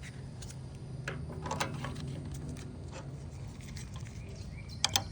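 Faint scattered clicks and scraping as the refrigerator's ice auger and its fittings are gripped and twisted counterclockwise to loosen them, over a steady low hum.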